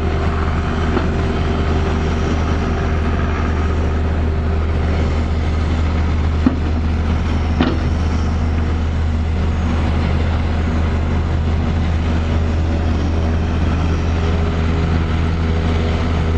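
Caterpillar backhoe loader's diesel engine running steadily under load while the machine compacts a backfilled trench, with two short knocks about a second apart around the middle.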